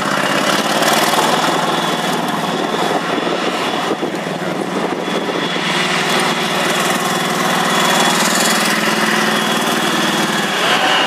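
Tank engine running steadily under load as the tank drives, laying a smoke screen with its smoke-generating system.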